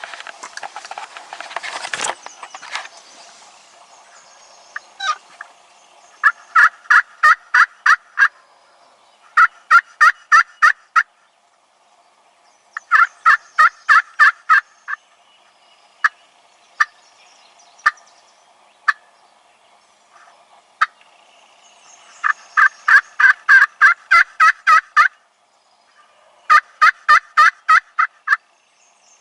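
A hunter's turkey call worked close by: runs of seven or eight sharp yelps, each run lasting about two seconds, with single clucks scattered between them, calling to a tom that will not come in. A short rustle comes at the start.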